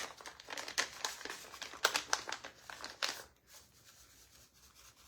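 Taco seasoning packet crinkling and rustling in the hand as the seasoning is sprinkled out, a run of quick crackles that stops about three seconds in.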